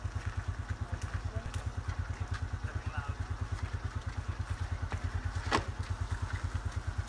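Motorbike engine idling with a steady, even low beat of about ten pulses a second. A single sharp knock about five and a half seconds in.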